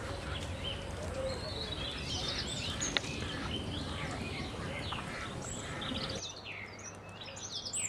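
Several birds chirping and calling in short, quick notes over a steady background hiss and low hum. A single click comes about three seconds in, and the background noise drops noticeably about six seconds in.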